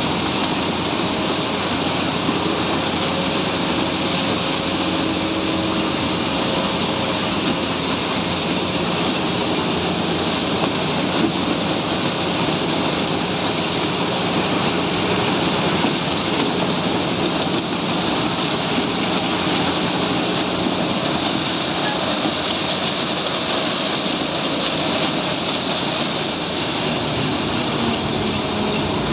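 Sugarcane harvester's diesel engine running steadily under load as the machine works through the cane, a loud continuous mechanical roar.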